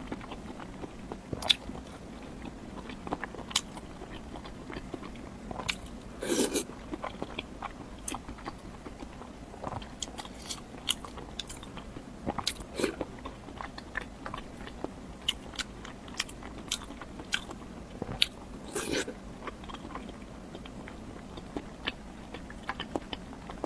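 Close-miked eating sounds: a person biting and chewing food, with many short, wet clicks and crunches. Three longer, louder bites or chews come about 6, 13 and 19 seconds in.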